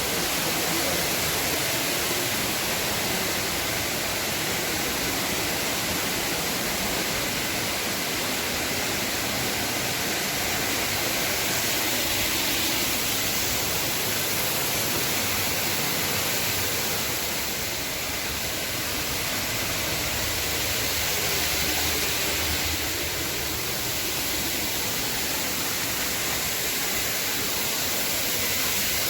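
Steady rush of a large waterfall, an even noise of falling water, dipping slightly twice.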